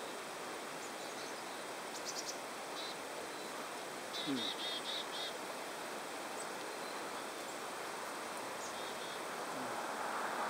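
Steady outdoor background hiss with a small bird chirping: a few high chirps about two seconds in and a quick run of five about four seconds in. The background rush grows louder near the end.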